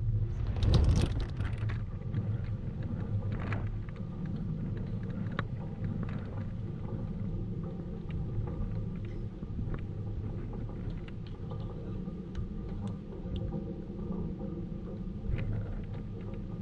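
Open-air tennis court ambience: a steady low rumble, with a louder rush about a second in and a few sharp knocks of tennis balls being struck or bounced.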